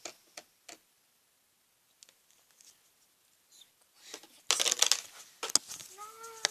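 Homemade slime squished and stretched by hand: scattered small clicks and pops, then a dense burst of wet crackling about four and a half seconds in.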